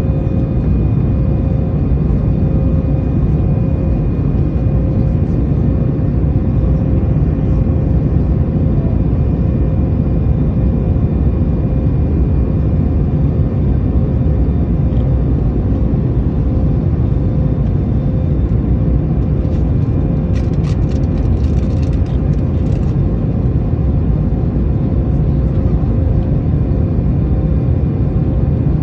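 Airbus A220 jet engines running with a steady, loud rumble and a few steady whining tones above it. There is a short patch of faint crackling about twenty seconds in.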